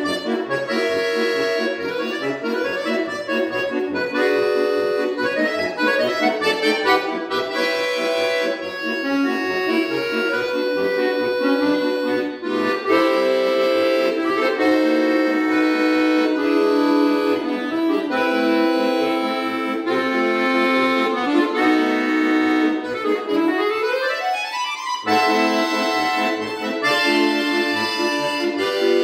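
Solo button accordion (bayan) playing a lively classical piece with quick runs of notes. About 24 seconds in, a fast upward sweep climbs steeply in pitch before the playing carries on.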